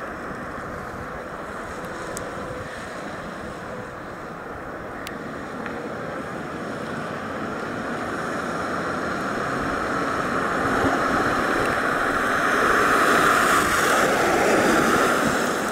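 Lincoln Town Car stretch limousine driving slowly across an asphalt lot, a steady rush of engine and tyre noise. It grows louder over the second half as the car comes back and passes close by.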